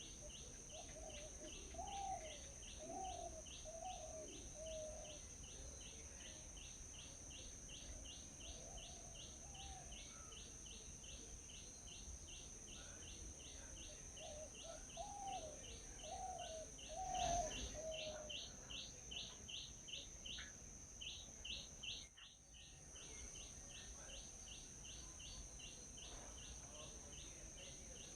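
Birds calling outdoors: a high chirp repeated about three times a second throughout, with lower calls in short runs of four or five notes near the start and again past the middle, over a steady high-pitched drone. A single brief knock sounds about 17 seconds in.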